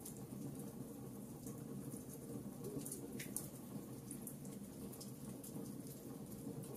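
Wood logs burning in a fireplace: a steady low rumble of the fire with scattered sharp crackles and pops, one louder pop about three seconds in.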